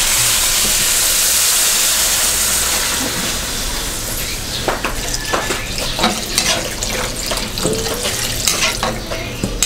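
Coconut milk pouring from a stainless steel bowl into a hot wok with a steady hiss that fades after about four seconds, followed by a metal spatula clinking and scraping against the wok.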